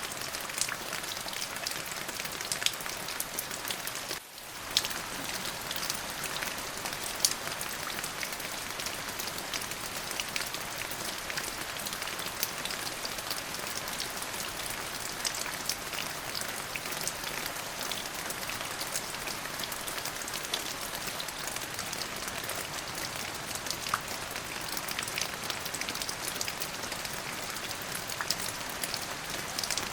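Steady rainfall on a surface: an even hiss full of fine, sharp drop ticks, with a brief dip in level about four seconds in.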